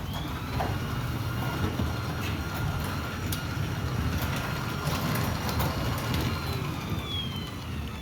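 Sommer garage door opener running as it raises the garage door, a steady low rumble with a thin high whine. The whine drops in pitch near the end as the door nears the top.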